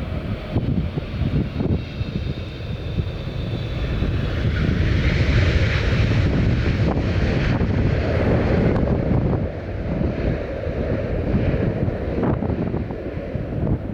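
Jet airliner engine noise swelling to its loudest about halfway through, then falling away, over heavy wind buffeting on the microphone.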